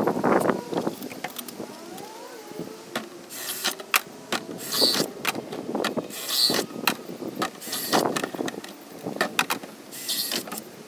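Cordless drill with a half-inch bit running in several short bursts, boring drain holes through the side of a black plastic mixing tub, with sharp knocks and clicks of the plastic tubs being handled.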